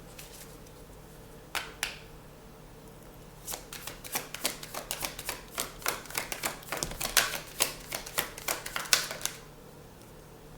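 A deck of tarot cards being handled and shuffled: two snaps, then a quick run of papery clicks for about six seconds.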